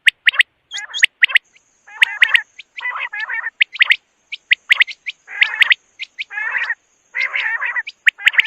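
Quail calling over and over, about one call a second: each call is a sharp, high note followed by a quick, throaty, warbling phrase.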